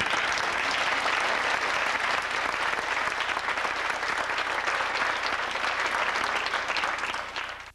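Audience applauding, a dense clatter of many hands clapping that fades out near the end.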